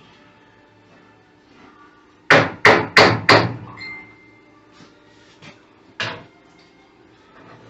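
Hammer blows: four quick, loud strikes about a third of a second apart, then a lighter knock and one more strike a couple of seconds later.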